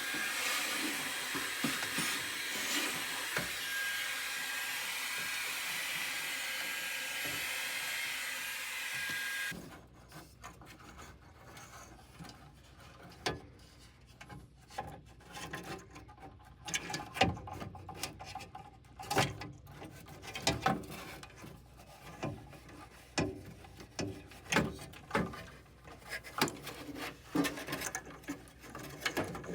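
A small power tool runs steadily with a faint whine for about nine seconds, scrubbing rust and old gasket residue off the furnace's inducer mounting surface. It cuts off suddenly, and irregular clicks and scrapes of hand work on the sheet metal follow.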